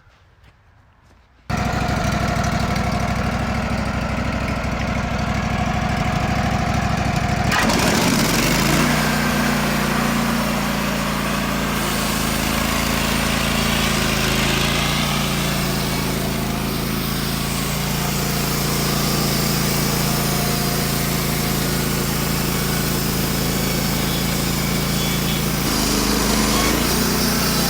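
Wood-Mizer LT15WIDE portable sawmill running: the engine comes in abruptly, rises in pitch about eight seconds in as it revs up, then runs steadily at speed.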